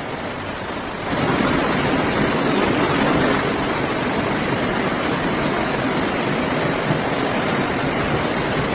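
Steady rushing roar of fast-flowing floodwater, getting louder about a second in and then holding even.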